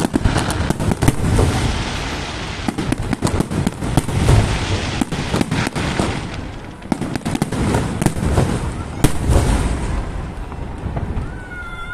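Fireworks display: a rapid barrage of sharp crackling reports over deep booming bursts, easing off near the end.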